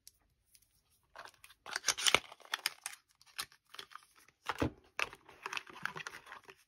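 Small cardboard boxes of gel nail polish being handled and pulled out of their packaging box: irregular rustling, scraping and tapping of card, starting about a second in.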